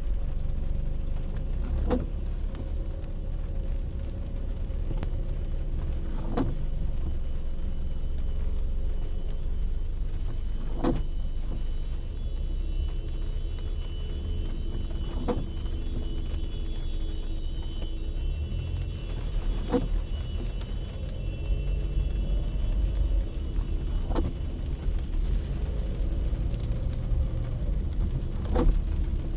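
Steady low rumble of a car heard from inside, with a short knock about every four and a half seconds.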